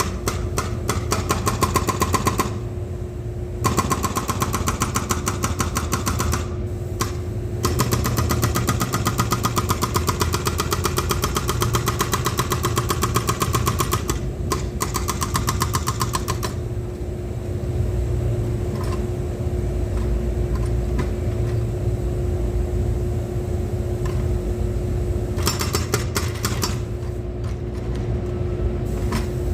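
Excavator engine running steadily with a constant whine, broken by long spells of rapid clatter that stop and start several times.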